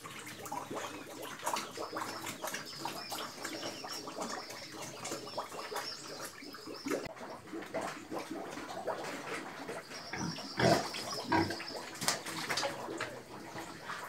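Pigs feeding on grain scattered on a concrete pen floor: a continuous busy crunching, chewing and snuffling, with grunts, loudest about ten to eleven seconds in.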